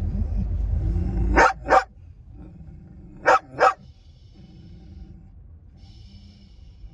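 A dog barks four times, in two quick pairs about two seconds apart. A low rumble underneath drops away about a second and a half in.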